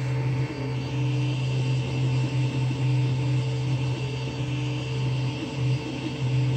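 Creality CR-10S 3D printer printing a first layer: its fans give a steady low hum, and a stepper-motor whine comes and goes in short stretches as the print head moves.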